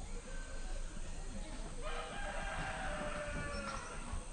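A rooster crowing once, a single drawn-out call of about two seconds starting near the middle, over a low background rumble.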